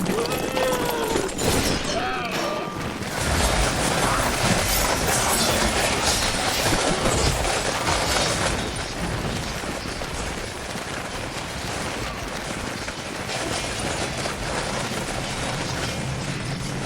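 Remade battle sound effects of a massed melee: a dense, continuous mass of clashing impacts and crashes. A few shouted cries come in the first two seconds.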